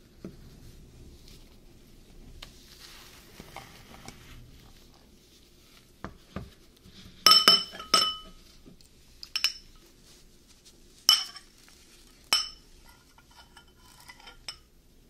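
A metal spoon clinks against a small glass bowl about five times in the second half, each strike ringing briefly. Before the clinks there is soft scraping as the spoon works through the frozen dessert, and near the end there are lighter scrapes and taps.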